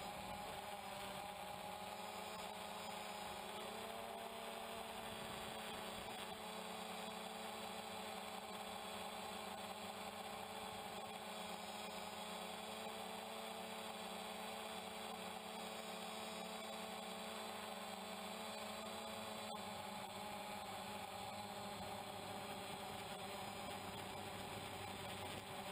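DJI Phantom quadcopter's motors and propellers running in flight: a steady hum of several tones together, which dip slightly in pitch about four seconds in.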